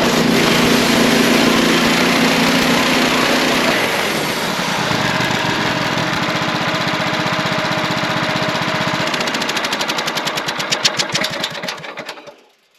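Wood-Mizer portable bandsaw mill running under power while sawing a pine log. Its engine note shifts about four seconds in, turns into a fast flutter, then winds down and stops just before the end as the mill is shut off.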